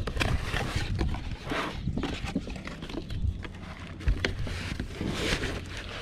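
Cardboard box being opened by hand: flaps pulled back, with cardboard rustling and scraping and a few light knocks.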